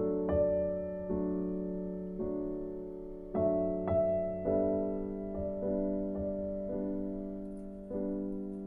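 Soft, slow background piano music, chords struck about once a second and left to ring.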